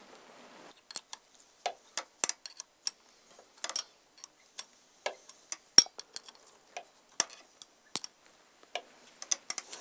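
Irregular sharp clicks of a 10 mm spanner on a Honda plug spanner, a few a second, the loudest about six seconds in. It is being worked and refitted in short swings to unscrew a tight, cross-threaded spark plug from an aluminium cylinder head.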